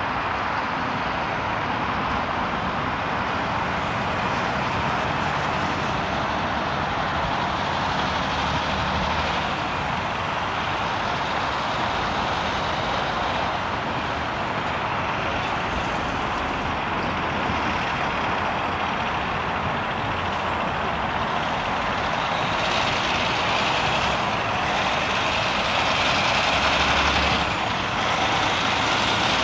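Peterbilt 389 semi-truck hauling a heavy excavator on a lowboy trailer approaching: steady diesel engine and road noise that grows a little louder over the last several seconds, with a hiss coming in during that stretch.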